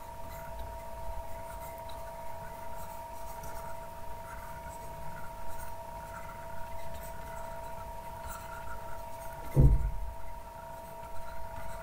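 Faint rubbing of a stylus on a drawing tablet over a steady two-tone electrical whine and low room rumble. One brief low thump comes near the end.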